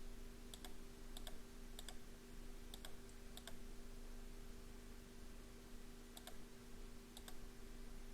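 About seven single clicks at the computer, irregularly spaced with a pause in the middle, over a steady low electrical hum.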